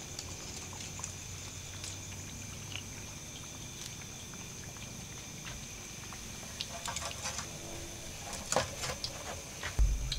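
Breaded pork cutlets deep-frying in hot oil in a wok: a steady sizzle scattered with small crackles and pops. A run of louder clicks and knocks comes late on, ending with a low thump.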